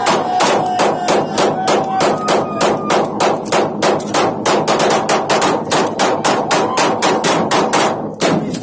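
Rapid handgun fire from a line of shooters at an indoor shooting range, shots overlapping at about five or six a second, stopping suddenly near the end.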